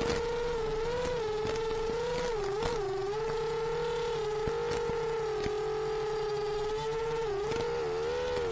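Motors and propellers of an AOS 7 seven-inch FPV quadcopter with big motors, whining steadily as it cruises low and slow. The pitch wavers with the throttle and dips briefly twice, about two and a half seconds in and again near the end.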